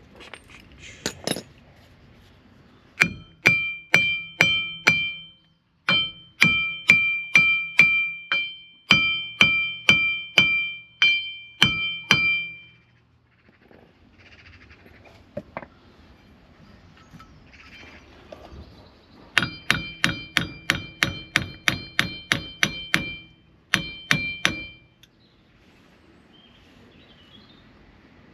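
Hammer striking steel, each blow ringing with a bright metallic tone, in two runs of quick strikes about two a second with a pause between them: pounding to knock a seized, rusted part free on the van's driveshaft and wheel hub.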